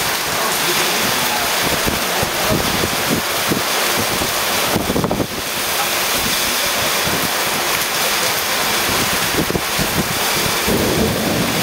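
Heavy thunderstorm rain pouring steadily, with gusts of wind buffeting the microphone.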